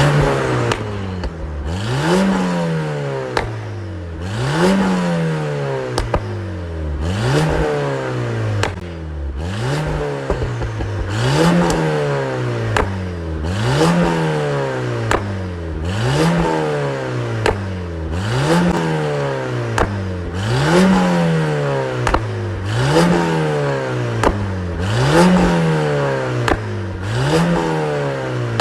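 2010 VW Golf Mk6 GTI's turbocharged 2.0-litre four-cylinder being blipped over and over, about once every two seconds: the revs shoot up and fall back more slowly. As each rev drops, the exhaust pops and crackles, the overrun burble from a Stage 2 pops-and-crackles tune through a catless 3-inch downpipe.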